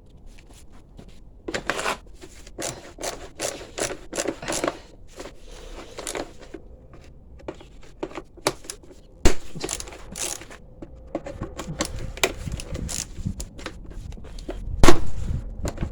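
Hand tools and metal parts being handled on a motorcycle: irregular scrapes, clicks and knocks, with a sharp knock about nine seconds in and a louder one near the end.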